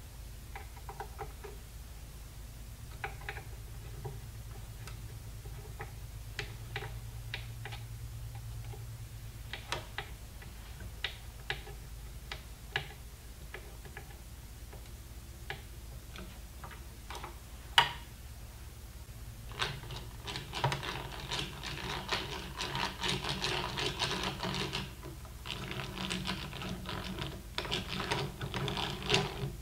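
Scattered small clicks and scrapes of a slim hand tool worked in a brass trigger guard's screw hole. Then, about twenty seconds in, the rattling gear whir of a hand-cranked drill boring a screw hole through the guard into the wooden stock, in two runs with a short pause between them.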